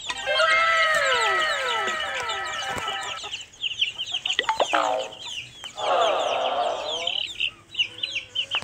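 Chickens clucking, with many quick, high, falling chick peeps through the second half.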